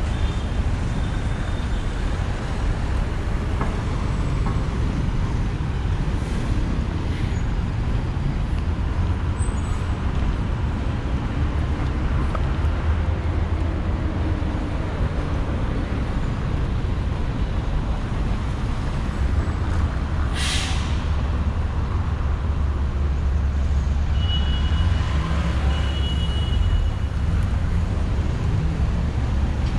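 City traffic: a steady rumble of passing cars and buses. About two-thirds of the way through a bus's air brake gives a short, sharp hiss, and a few short high beeps follow soon after.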